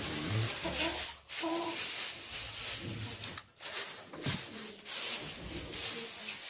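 Dry straw rustling and crackling as it is spread and pressed down by hand along a wooden wall.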